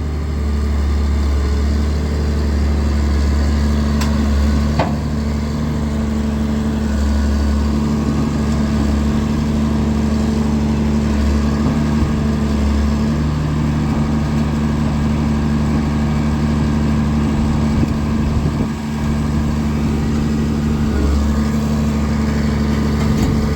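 Caterpillar 336D2 excavator's diesel engine running steadily at idle, with a faint click or two about four to five seconds in.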